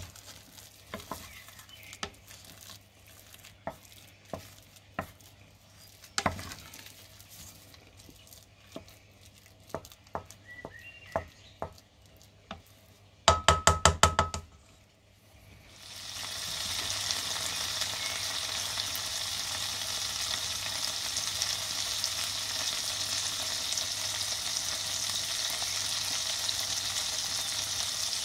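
A wooden spoon stirring and working mashed potatoes in a stainless steel pot, with scattered knocks against the pot and a rapid run of loud knocks about halfway through. About two seconds later a steady sizzle sets in: pieces of liver frying in fat in a pan.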